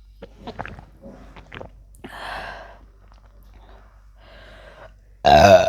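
A woman gulping and swallowing carbonated soda in quick clicks, then two breathy exhales, then a loud, low-pitched burp near the end.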